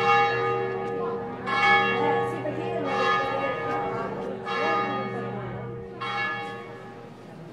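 Church bell tolling: five strokes about a second and a half apart, each one ringing on into the next, growing fainter toward the end.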